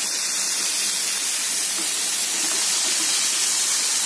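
Hot oil sizzling in a nonstick pan as a heap of chopped amaranthus leaves is tipped in on top of frying onions, a steady hiss.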